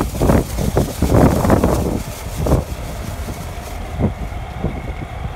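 Wind buffeting the microphone in heavy gusts, easing after about two seconds to a steadier low rumble with a faint hum.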